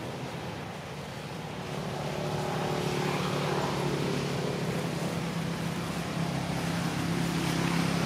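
A motor vehicle's engine running steadily with a low, even hum, growing louder about two seconds in.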